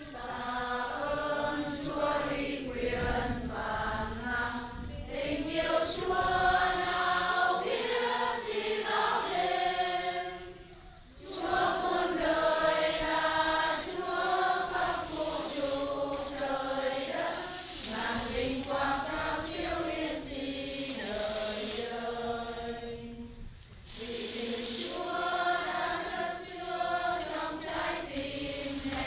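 Choir singing a closing hymn in long sung phrases, with brief pauses about eleven and twenty-four seconds in.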